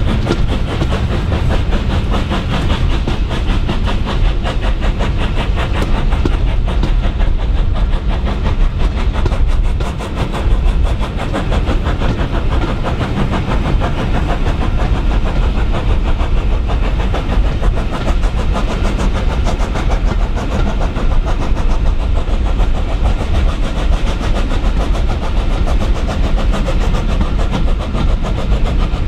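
LMS Jubilee class 4-6-0 steam locomotive 45596 Bahamas working hard as it pulls its train away, the three-cylinder exhaust beating in a rapid, even rhythm over the coaches running on the rails. It is heard from an open window of one of the carriages it is hauling.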